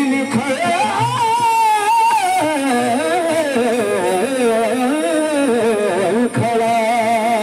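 A male singer holds a long wordless melismatic phrase, the voice gliding up and down with a quick vibrato, over a harmonium accompaniment.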